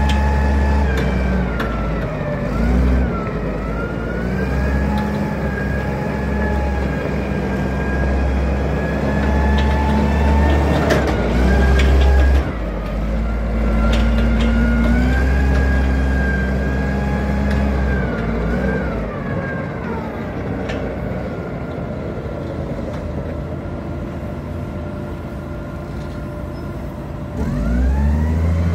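Forklift's engine running as it drives, its pitch rising and falling with the throttle, together with a whine that follows the engine speed. It fades for a stretch past the middle and swells again near the end.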